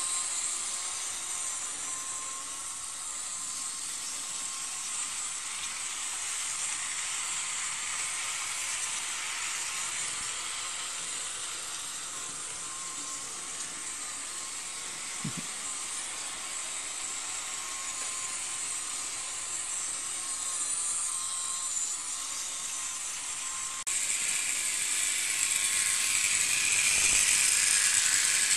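Model railway train running on its track: a steady whirring of the small electric motor and wheels on the rails, which turns suddenly louder about four seconds before the end.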